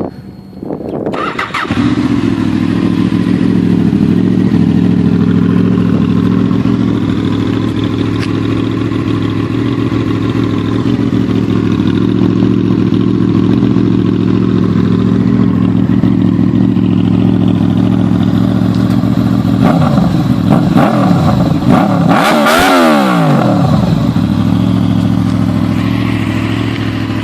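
Honda VFR800 Interceptor's V4 engine, fitted with a Delkevic full exhaust, starts up about a second and a half in and settles into a steady, loud idle. About twenty seconds in, the pitch briefly rises and falls.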